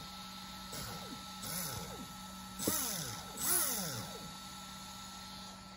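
Traxxas Velineon brushless motor, running unloaded on the bench from its VXL-3s speed controller, revving up and back down in about four quick throttle blips, each a rising then falling whine. The last two are the loudest, and a steady low hum runs underneath.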